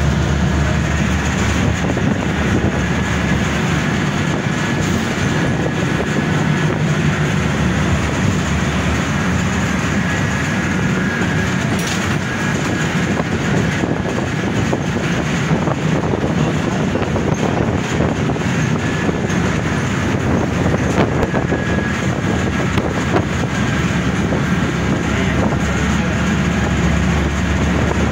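Steady engine and road noise of a moving city bus heard from inside the cabin, with scattered rattles and clicks from the bus body and windows.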